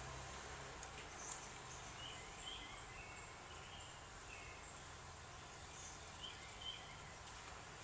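Faint, short high chirps, a few scattered through, from house finch nestlings begging as the adult male feeds them, over a steady low hum and hiss.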